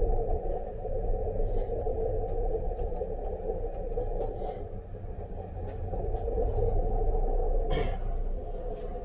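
Steady low rumble and hum of a cruise ship's machinery heard inside a passenger corridor, with a few faint knocks and a sharper click about eight seconds in.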